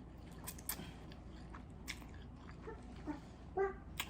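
Close-miked chewing of spaghetti in meat sauce: scattered soft, wet mouth clicks and smacks, with a brief hummed voice sound about three and a half seconds in.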